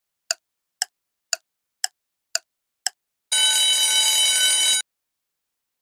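Countdown-timer sound effect: six sharp ticks about two a second, then an alarm ringing for about a second and a half as the time runs out.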